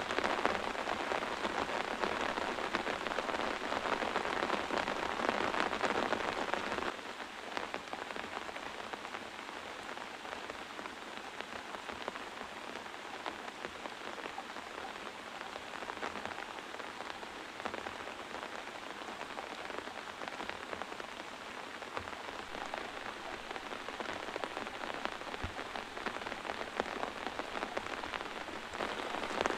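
Heavy rain falling steadily as a dense even hiss. Its level drops abruptly about seven seconds in, then holds steady.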